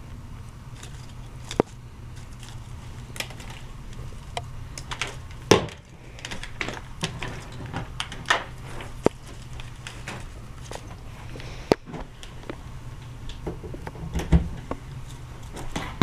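Scattered clicks, taps and rustles from a laptop power cord and AC adapter being handled and set down on a table, over a steady low hum.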